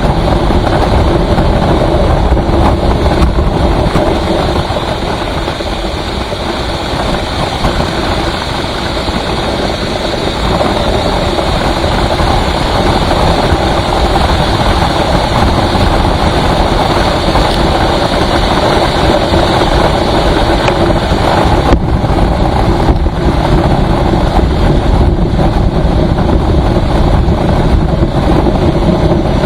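Vehicle travelling at highway speed: loud, steady engine, tyre and wind noise.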